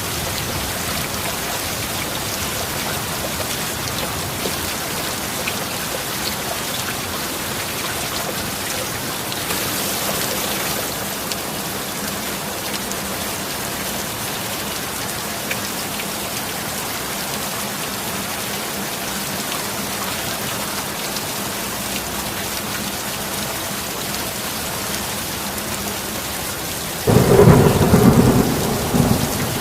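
Steady heavy rain hissing. Near the end a sudden loud thunderclap breaks in and rumbles for a couple of seconds before dying away.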